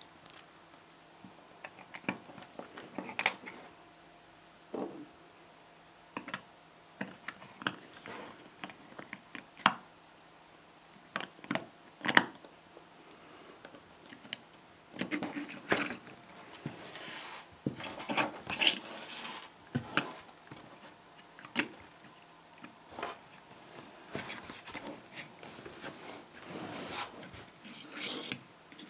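LOZ iBlock plastic micro building blocks handled by hand: scattered small clicks and taps as the Pikachu figure is pressed onto its plastic base plate and set down on a wooden table. There are stretches of rubbing and scraping about halfway through and again near the end.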